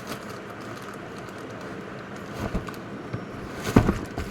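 A few light knocks of a mixer grinder's jars and parts being handled, with the loudest knock near the end, over a steady background hiss. The grinder's motor is not running.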